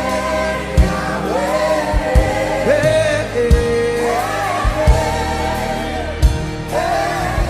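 Gospel worship music: voices singing a held, wavering melody over drum hits.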